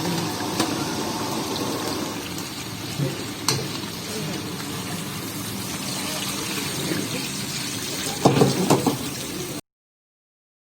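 Chicken karahi cooking in a karahi pan, a steady sizzle and hiss with a few sharp utensil clicks and a louder clatter near the end. The sound then cuts out completely for about a second.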